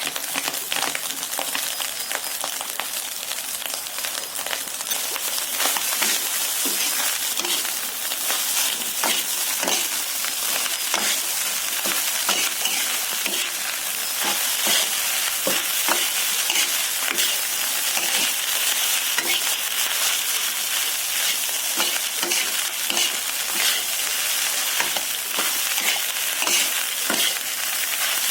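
Food sizzling steadily in a hot pan while it is stirred, with frequent short scrapes and clicks of the spatula against the pan.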